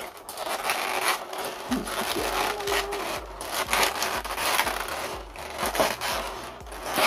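Fingers rubbing and pressing on a thin clear plastic blister tray, the plastic scraping and crinkling in a run of short rustles.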